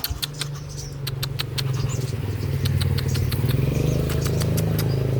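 A motor engine running steadily, its hum growing louder about two seconds in, with a run of sharp clicks and short high chirps over it in the first half.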